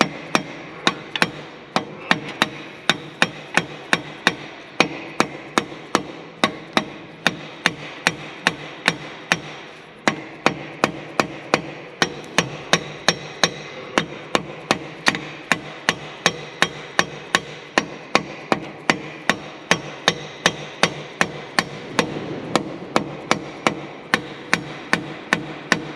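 Rubber mallet tapping a cylinder liner down into a Fendt tractor engine block, a tight fit: a steady run of knocks, about two to three a second, with a short pause about ten seconds in.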